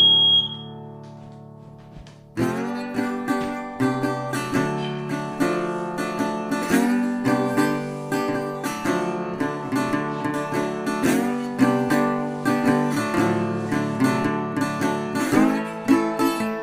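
Background acoustic guitar music. A chord rings out and fades, then picked notes start up again about two seconds in.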